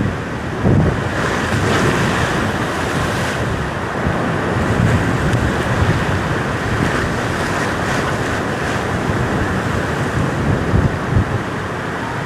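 Heavy ocean swell surging and breaking against a rock ledge, with wind buffeting the microphone. A steady rush of surf, with brief louder surges about a second in and near the end.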